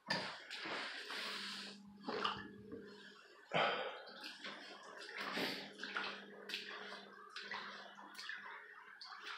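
Footsteps sloshing and splashing through water on flooded, waterlogged carpet, in uneven splashes, over a steady low hum.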